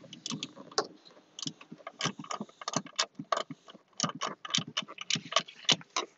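Irregular metallic clicks and clacks of hand tools at work, several a second, with no steady machine sound underneath.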